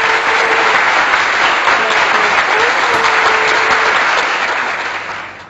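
Applause: a crowd clapping steadily, dense and loud, fading out near the end.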